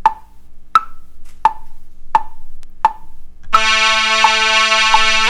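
Software metronome counting in with sharp, evenly spaced clicks at 86 beats per minute. About three and a half seconds in, a synth lead starts, played from a USB MIDI keyboard: held notes that step between pitches, with the metronome still ticking faintly underneath.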